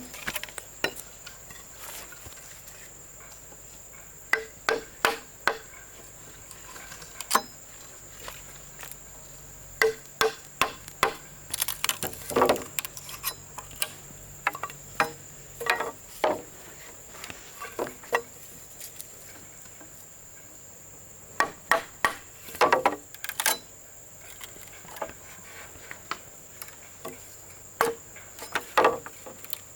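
Irregular knocks of hand tools striking wood, singly and in quick clusters, over a steady high drone of insects.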